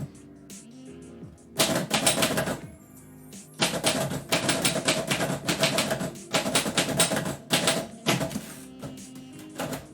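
Typewriter keys struck in quick runs of rapid clacks, a short burst about a second and a half in and a longer stretch of fast typing from about three and a half seconds to eight, over background music.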